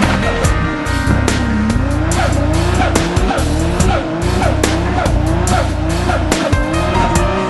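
Turbocharged Toyota Supra engine revving hard in repeated rising pulls, about two a second, with tyre squeal, over music with a steady beat.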